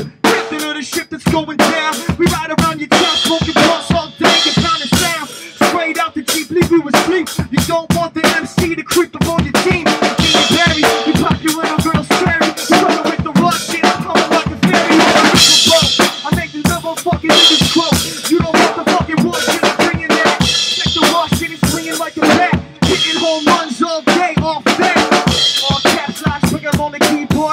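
Drum kit played at a fast, busy pace: kick drum, snare and rimshots in dense strikes, with cymbal crashes every few seconds.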